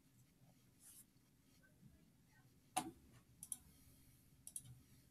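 Near silence: room tone, with a few faint clicks in the second half, the clearest about three seconds in.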